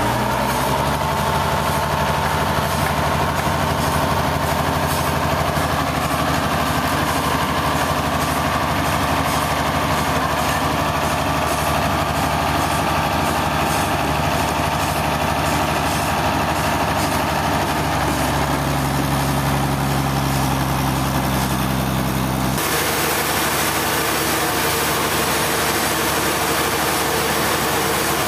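Engine of heavy machinery running steadily, its pitch shifting about 18 seconds in; about 22 seconds in the sound changes abruptly to a different engine sound.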